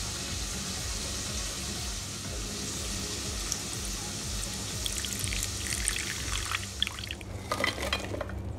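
Chicken skins frying in hot oil, a steady sizzle with crackling pops that grow thicker in the last few seconds.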